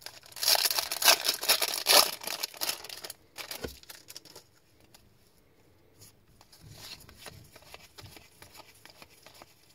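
Foil trading-card pack wrapper being torn open and crinkling for about three seconds, with many sharp crackles. Softer rustling of the cards being shuffled follows near the end.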